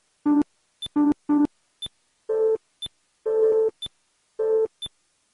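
Synthesized beeps of a nuclear-test time-lapse map: a short high pip about once a second marks each passing month, and longer buzzy tones each mark a test. Three lower tones come in quick succession early on, then three higher, longer tones about a second apart.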